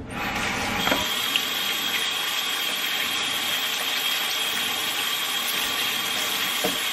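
Kitchen tap running steadily onto peeled potatoes in a stainless-steel colander in the sink as they are rinsed. A thin, steady high whine joins the water sound about a second in.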